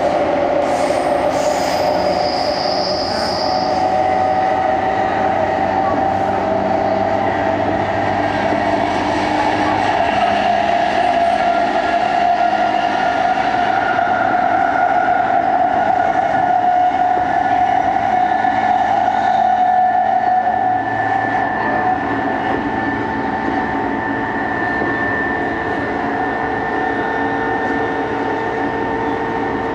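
Interior running sound of a JR East E233 series 2000-subseries motor car at speed: a steady rumble of wheels on rail with a constant motor whine. A brief high squeal comes about two seconds in, and the sound eases slightly about twenty seconds in.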